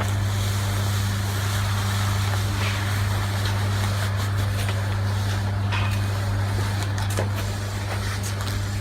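Feed mixer's 3-horsepower electric motor, geared down in two stages, running with a steady low hum, with a few faint knocks from the machine.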